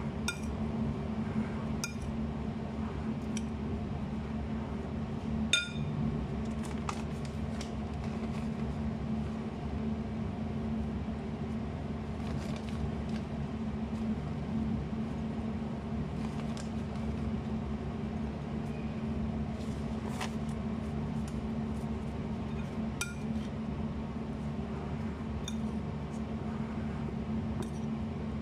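A utensil clinking against a glass mixing bowl as a salad is tossed: scattered single clinks, the loudest about five and a half seconds in. A steady low hum runs underneath.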